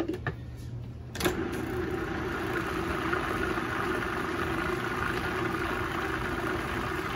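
Cuisinart food processor switched on with a click about a second in, its motor then running steadily with a low hum as it blends a thick cream cheese, heavy cream and powdered sugar mixture.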